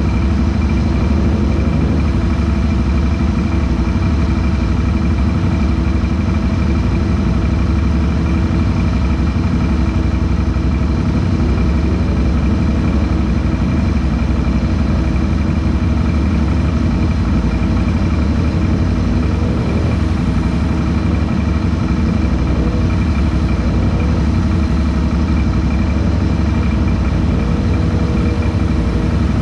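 ATV engine idling steadily at close range, with another ATV's engine faintly revving up and down a few times in the mud hole.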